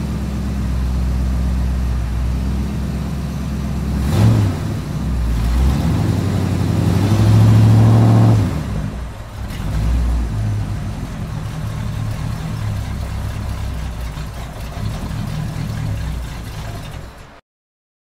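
Car engine sound effect: a motor running steadily, with a swell about four seconds in and a louder rev-up around eight seconds, then cutting off abruptly near the end.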